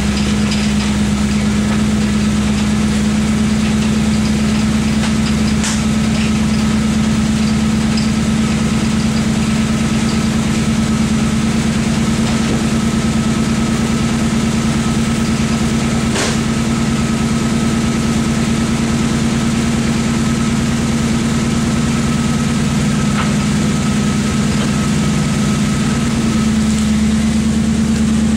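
Dodge Ramcharger engine idling steadily as it warms up. Two sharp clicks sound about a fifth and about halfway through, and the idle note shifts slightly near the end.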